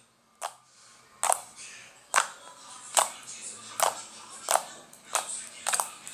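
Homemade borax-free glue slime being squeezed and folded by hand, giving a string of sharp clicks and pops, about one every two-thirds of a second and a little quicker near the end.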